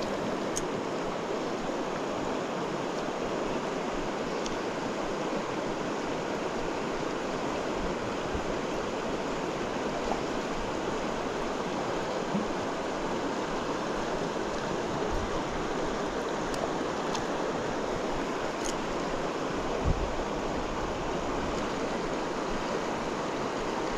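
Steady rush of a mountain river's flowing water. A few faint clicks and one brief thump about 20 seconds in.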